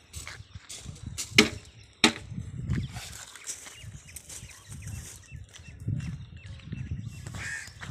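Handling noise from a phone carried by someone walking across a dirt building site: irregular clicks and knocks, the two loudest about a second and a half and two seconds in, over a low rumble.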